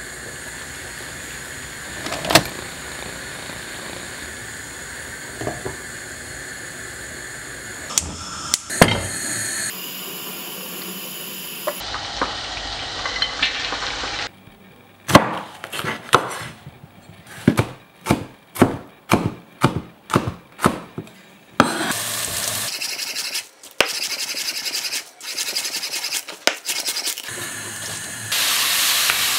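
Kitchen cooking sounds: a metal clank about two seconds in, then around the middle a run of sharp knocks about two a second, and from about two-thirds in a steady sizzle of food frying in a wok that gets louder near the end.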